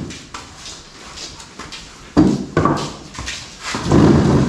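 Wooden benches and a table being moved on a concrete floor: a sharp knock about two seconds in as a piece is set down, then a low scraping rumble near the end as the table is pushed into place.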